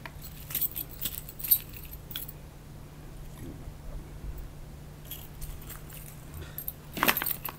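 Spinnerbaits handled in a pile, their metal blades and wire arms clinking together in two spells of light jingling, the louder one near the end, over a steady low hum.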